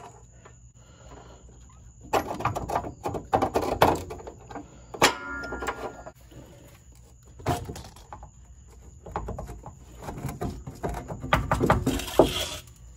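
Metal clanks and knocks of hand tools working loose the rear leaf spring mounting hardware under a classic car. There is a sharp metal strike about five seconds in that rings briefly, and a run of clattering near the end.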